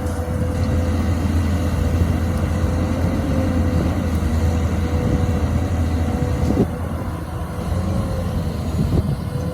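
XCMG XE215C crawler excavator's diesel engine running steadily under working load, with a constant high whine over the low engine hum and a short clatter about six and a half seconds in.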